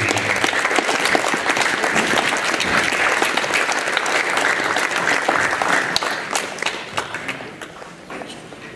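Audience applauding, a steady clatter of many hands that fades away over the last couple of seconds.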